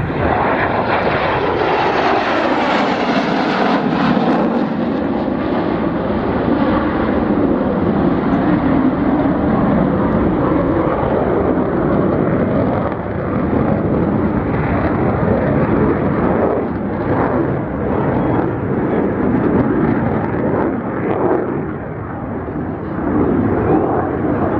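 F-16 Fighting Falcon jet fighters flying past: loud, continuous jet engine noise whose pitch sweeps down over the first several seconds as they pass, with the level dipping briefly now and then.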